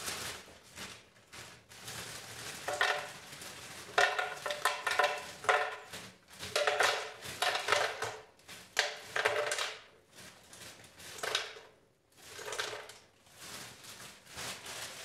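Frozen zucchini slices shaken out of a plastic freezer bag into a blender pitcher: the bag crinkles and the frozen pieces clatter into the pitcher in irregular bursts.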